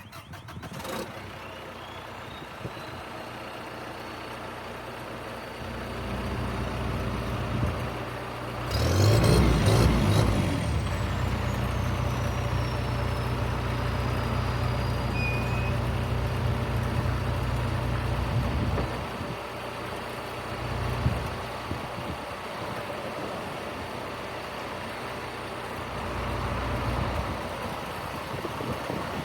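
John Deere 310L EP backhoe loader's diesel engine running steadily, its level rising and falling several times as it is revved or loaded. The loudest part is a burst about nine seconds in, with a whine that climbs and then slowly falls.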